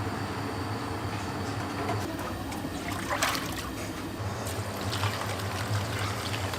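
Water trickling and splashing, with a stronger splash about three seconds in, over a steady low hum.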